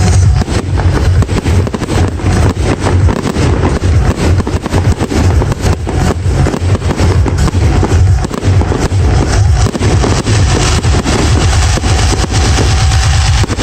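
Fireworks going off in a rapid, dense barrage: many quick bangs and crackles over a heavy low rumble, with no break.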